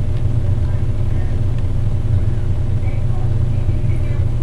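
A steady low rumble with no change in level.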